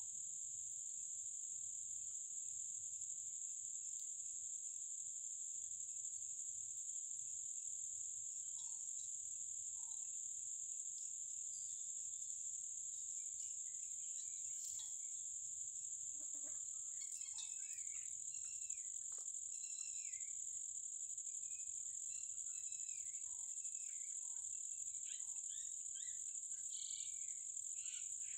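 Steady, high-pitched insect chorus, crickets or similar. From about halfway there are scattered short chirps, and a few soft clicks.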